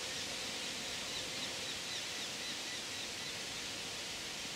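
Steady rush of wind through the trees, with a small bird repeating short, falling high chirps about three times a second.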